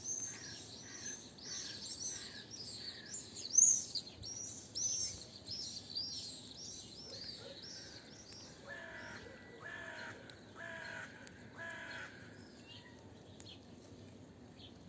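A flock of small birds chirping busily, with many quick overlapping high chirps. From about eight and a half seconds in, four repeated lower, harsher calls follow, evenly spaced about a second apart, and the chirping thins out.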